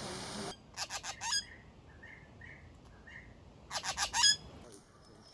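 Green magpies calling: two bursts of harsh, rapid squawking notes about three seconds apart, the second louder. A few soft single notes fall between them.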